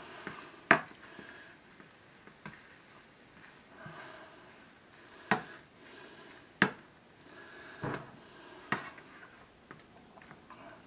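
Black plastic spoon stirring ground beef and barbecue sauce in a white nonstick frying pan: soft scraping and shuffling of the meat, broken by about five sharp, irregular knocks of the spoon against the pan.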